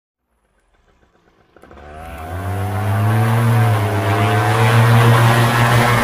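Paramotor's Vittorazi Moster two-stroke engine and propeller running. The sound rises in from silence about a second and a half in, then holds steady and loud.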